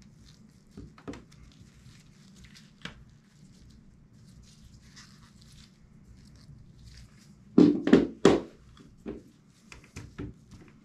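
Bearings being pressed by hand into inline skate wheels: soft clicks and taps from the handling, with three heavy thunks in quick succession about three quarters of the way through, followed by a few lighter knocks.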